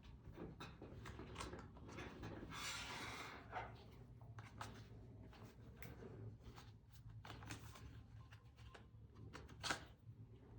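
Faint handling noises of hands working on an open laptop: scattered small clicks, a short rubbing rustle about three seconds in, and a sharper click near the end.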